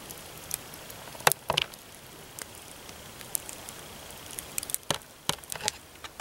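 Wood campfire crackling, with irregular sharp pops over a faint steady hiss.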